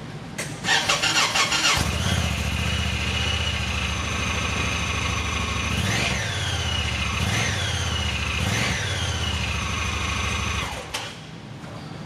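Honda Pioneer 1000 side-by-side's engine cranked and started, then idling steadily. It is revved briefly three times, a second or so apart, and then shut off near the end.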